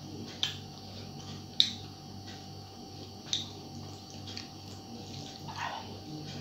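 Eating sounds of a person eating rice by hand: a few sharp smacking clicks, the loudest about a second and a half in, with a brief squeak near the end.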